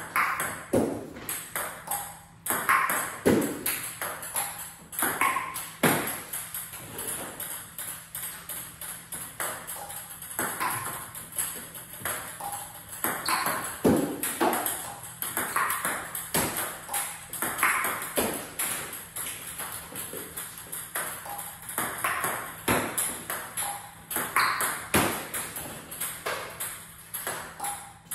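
Table tennis ball clicking off paddle rubbers and bouncing on the table in a continuous practice rally, a sharp click every half second to second.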